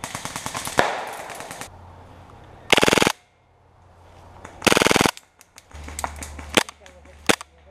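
Airsoft rifles firing full-auto: a rattle of rapid shots, then two short bursts about two seconds apart, followed by a few scattered single shots.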